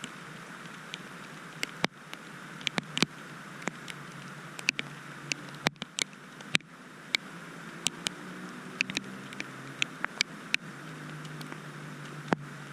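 Rain falling: a steady hiss with irregular sharp taps and drips of drops striking a hard surface close by.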